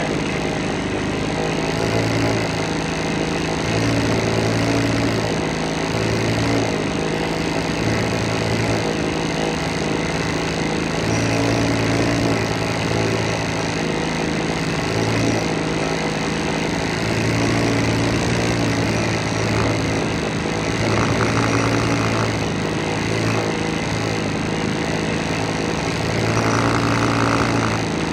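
Husqvarna 50 two-stroke chainsaw engine idling steadily, its note wavering every second or two. The engine has low compression, about 80 psi.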